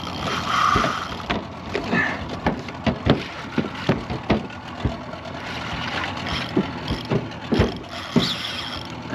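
Irregular knocks and slaps on a small fishing boat, with a steady rushing of water underneath.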